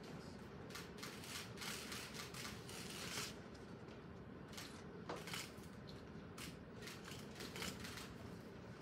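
Camera shutters clicking irregularly, many short clicks and quick runs of them in a quiet room.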